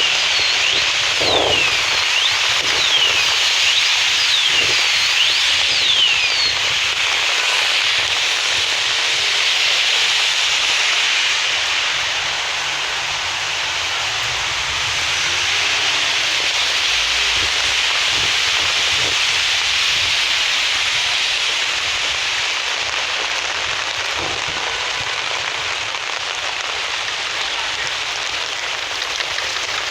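Steady rain falling, a dense even hiss, with a run of short, high sliding chirps during the first six seconds.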